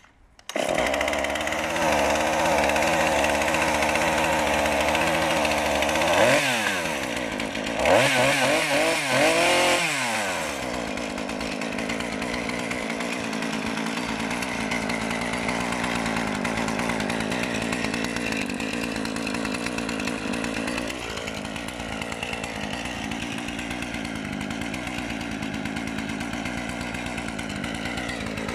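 Husqvarna 135 X-Torq two-stroke chainsaw catching on a pull and running, revved up and down twice about six and eight seconds in, then settling into a steady idle.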